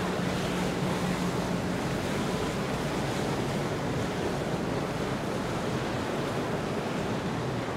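A motor yacht cruising past: the steady rush of its wake and churned water over a low engine hum that fades after a couple of seconds, with wind on the microphone.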